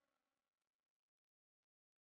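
Near silence: a pause between phrases of a recorded Quran recitation, with only the faintest fading trace of the previous phrase early on.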